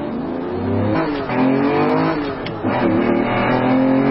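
Car engine revving up as it accelerates, its pitch climbing, dipping briefly about halfway through as at a gear change, then rising again and holding high.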